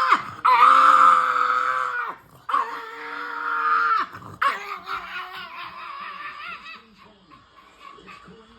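A dog howling in three long, drawn-out calls, each held at a steady pitch, the last one weaker and trailing off.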